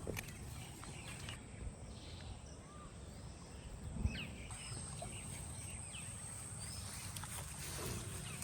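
Outdoor pond-side ambience: a steady low rumble with a thin high-pitched whine over it and a few short bird chirps, broken by a single knock about four seconds in.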